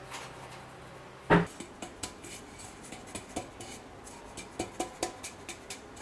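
Round metal baking pan being handled while flour is spread in it: one sharp knock about a second in, then a scatter of light taps and clicks as the pan is lifted, tilted and shaken to coat its greased bottom with flour.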